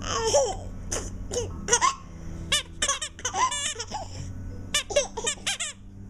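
A 10½-month-old baby laughing at a teething toy: a run of short, high-pitched giggles and squeals, one burst after another.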